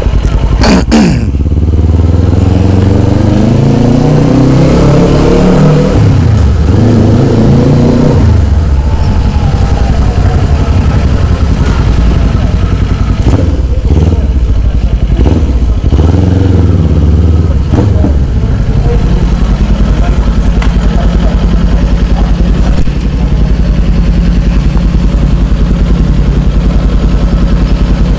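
Motorcycle engine pulling up through the gears, its pitch rising and dropping back at each shift over the first several seconds, then running at a steady low pitch. Heavy wind rumble on the microphone throughout.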